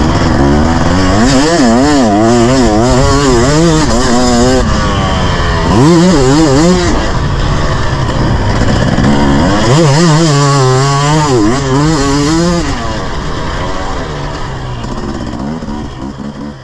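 Husqvarna motocross bike's engine heard from on board, revs rising and falling again and again as the throttle is worked through ruts and corners, over wind and rumble from the sandy track. The sound fades out over the last few seconds.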